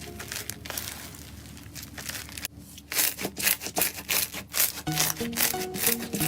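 Slime being crushed and squeezed: rough crackling and rubbing for a couple of seconds, then, after a short pause, a quick run of loud crunchy crackles at about three to four a second. Background music comes back in near the end.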